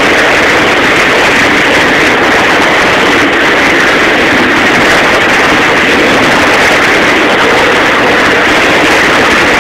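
Loud, steady rush of churning water in a motorboat's wake, with the boat's engine running under it.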